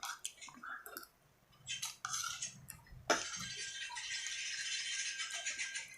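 Eating-utensil and dish sounds: a few short clicks and clinks, then from about three seconds in a steady scraping rustle.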